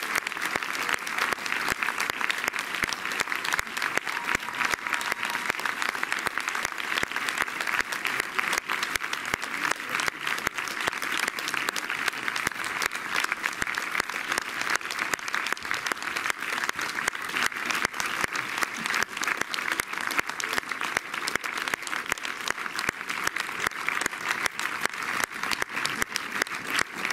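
An audience applauding: many hands clapping in a dense, even patter that holds steady.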